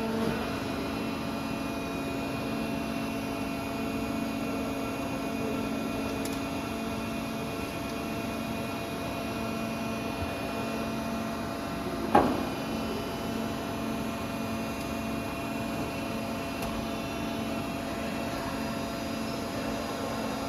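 CNC profile bending machine running a program with a steady mechanical hum, with a single sharp knock about twelve seconds in.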